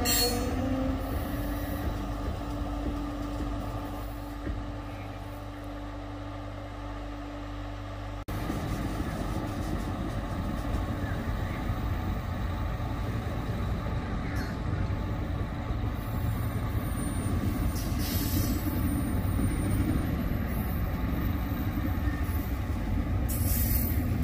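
Freight train running by on the main line: diesel locomotive rumble and the steady roll of cars. About eight seconds in the sound jumps abruptly to a louder, rougher rolling rumble with a few brief high hissing squeals.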